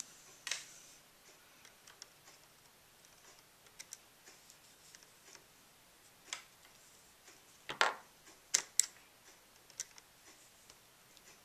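Scattered small, sharp clicks of a small Phillips screwdriver working the side screws that hold a laptop's LCD panel in its metal brackets. The clicks come a few at a time, the loudest about eight seconds in.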